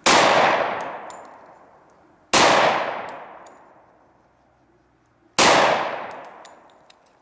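Three shots from a Glock 20 10mm pistol, about two and a half to three seconds apart, each followed by a long echo that dies away over about two seconds.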